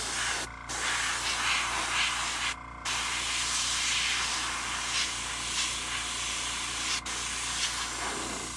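Gravity-feed airbrush spraying paint, a steady hiss of compressed air that drops out briefly about half a second in, again near three seconds, and near the end. The airbrush is spraying unevenly, which its user calls finicky even with the paint thinned plenty.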